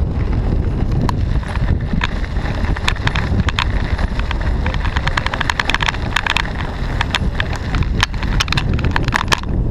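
A moving bicycle rattling over the road, with many sharp clicks that come thicker from about five seconds in, over a steady low rumble of wind buffeting the microphone.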